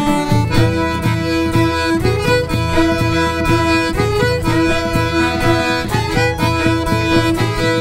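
Live Irish folk band playing an instrumental passage, with fiddle to the fore over guitar and a steady beat.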